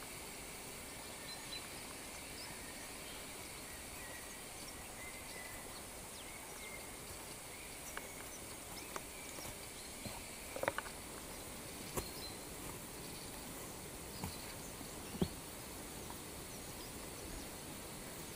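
Steady high-pitched drone of rainforest insects with a few faint chirps, under irregular footsteps crunching on leaf litter and roots. The sharpest steps come a little past halfway.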